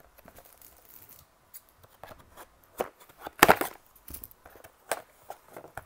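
Cardboard and plastic product packaging being opened by hand: scattered clicks, rustles and short noisy strokes, with a louder, longer stroke a little past halfway.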